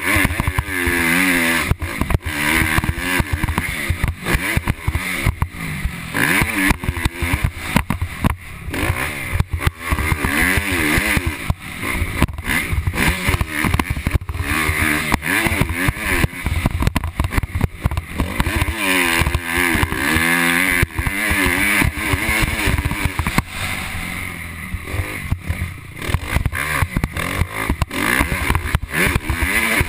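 Motocross bike engine revving hard and dropping back again and again as the rider accelerates, shifts and brakes around the track. Choppy wind noise buffets the helmet-mounted microphone throughout.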